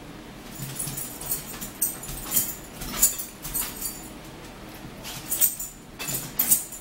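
Eating sounds close to the microphone: chewing with irregular short, sharp mouth clicks and smacks, about two a second.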